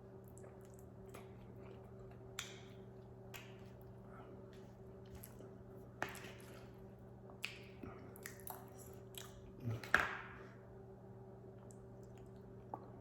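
A person eating: chewing and biting with scattered soft mouth clicks and smacks, the loudest a little after two-thirds of the way through, over a steady low hum.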